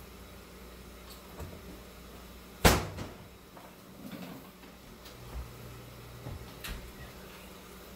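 A kitchen cupboard door shut with one sharp bang about a third of the way in, followed by a few faint knocks and clicks as a wall oven door is opened.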